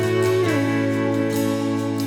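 Background music: an instrumental intro with held notes over a steady bass, one note sliding down about half a second in.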